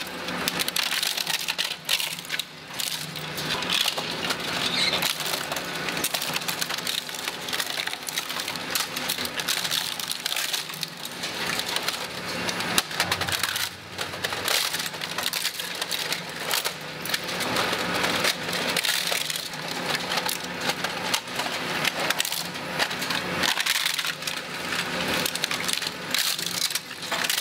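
Twin-shaft shredder's rotating cutter discs crushing plastic toy cars: continuous cracking and splintering of plastic over the machine's steady hum.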